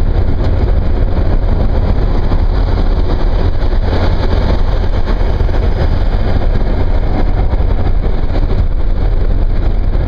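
Steady drone of a car driving at speed on a highway, heard from inside the car: road and engine noise with a heavy low rumble.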